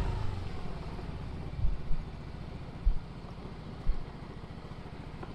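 Motorbike engine running steadily at low speed while the bike rolls slowly, with a few short low thumps.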